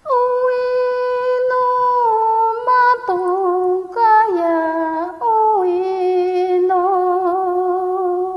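A woman humming a wordless icaro, the healing song of an ayahuasca ceremony, in long held notes that step down in pitch, with a slight waver on the later notes.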